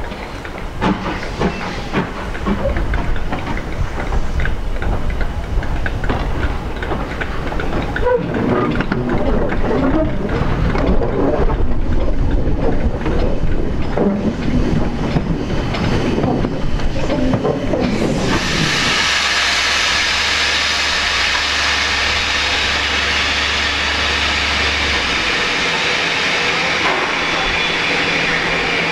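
LMS Black 5 two-cylinder 4-6-0 steam locomotive passing close by, with uneven knocks and rumble from its motion and exhaust. About 18 s in this gives way to a steady, loud hiss of steam escaping from the locomotive as it stands.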